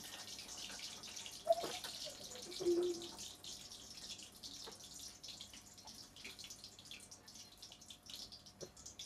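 Hot cooking oil left from frying tofu, sizzling and crackling in the pan and slowly dying down after the heat is cut. A single sharp knock about a second and a half in.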